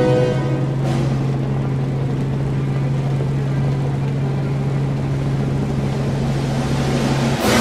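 Robinson R44 helicopter running, heard from inside the cabin: a steady, loud engine-and-rotor hum with a constant low drone. It cuts off suddenly near the end.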